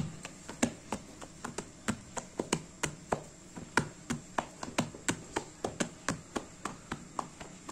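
Hands patting a thin round of flatbread dough on a cloth-covered cushion, quick soft slaps about three a second, as the dough is stretched into shape.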